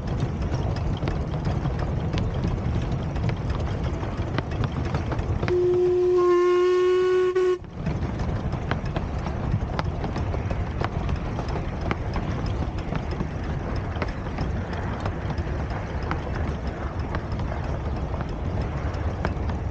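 Miniature steam locomotive's whistle blowing one steady note for about two seconds, about six seconds in, over the steady running noise of the double-headed train.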